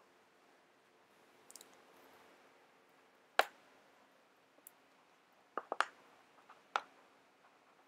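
A few sharp clicks and taps as a paintbrush and canvas board are handled on a wooden table: one click about three and a half seconds in, a quick run of three a little before six seconds and one more soon after, over a faint steady hum.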